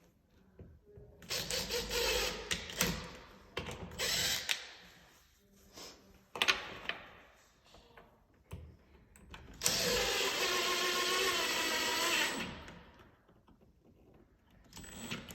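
Power drill boring the hole for a deadbolt. It runs in a few short bursts, then once steadily for nearly three seconds with a faint wavering whine, and stops.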